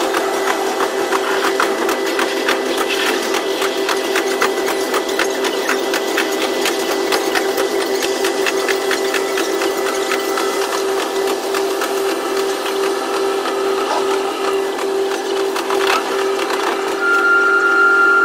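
KiHa 122 diesel railcar running, heard from the cab and sped up to double speed: a steady hum with rapid clicking from the wheels on the rails. Near the end a high steady whine starts.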